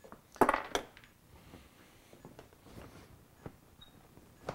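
Two sharp knocks close together about half a second in, then a few faint taps: a Honda CRF450R seat being pushed down and slid forward so its brackets engage the seat clips.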